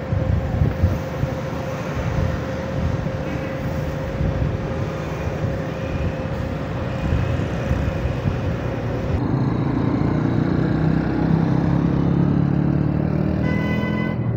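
Engine and road noise of a vehicle riding through busy city traffic, a steady rumble. The sound changes abruptly about nine seconds in, where the engine band grows stronger.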